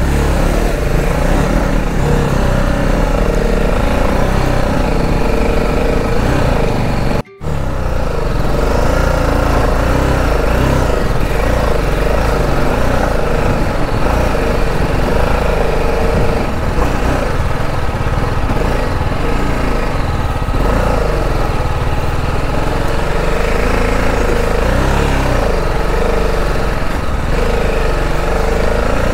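Motorcycle engine running steadily, with a brief drop-out about seven seconds in.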